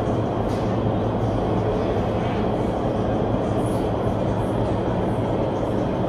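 A train running, a steady rumble without pauses or distinct knocks.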